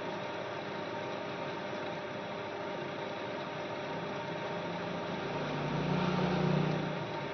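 Steady electrical hum with a fan-like whirr from repair-bench equipment, swelling louder for about a second and a half near the end before settling back.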